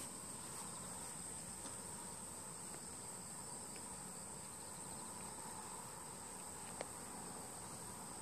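Steady high-pitched chirring of insects, with one faint click about seven seconds in.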